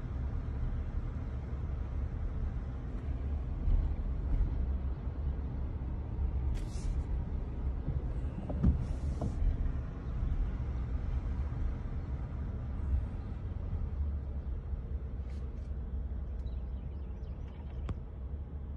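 A vehicle driving along a road: a steady low rumble of engine and tyres, with a few brief knocks, the loudest about nine seconds in.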